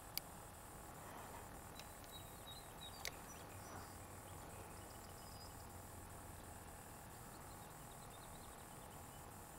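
Faint outdoor ambience: a steady hiss with scattered faint bird chirps, broken by two sharp clicks, one just after the start and another about three seconds in.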